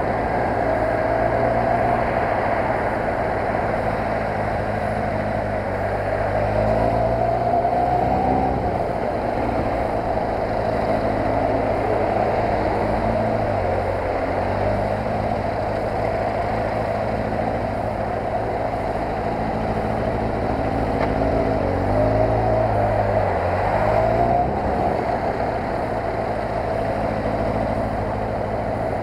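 Kawasaki ZR-7's air-cooled inline-four engine running at low speed in traffic. Twice it rises in pitch as the throttle opens and then falls back, over a steady wash of road and wind noise.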